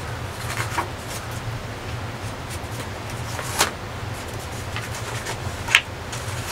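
Steady rushing of the Ganga at the Surya Kund falls. Two sharp clicks come about two seconds apart, the second louder.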